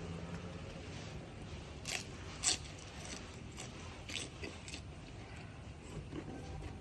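A person eating: chewing, with a few sharp clicks, the loudest about two and a half seconds in.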